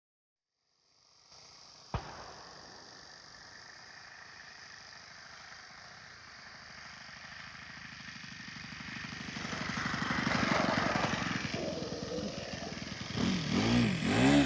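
OS 91 glow engine of a radio-controlled model biplane running. It grows steadily louder, and its pitch swings up and down near the end. A single sharp click about two seconds in.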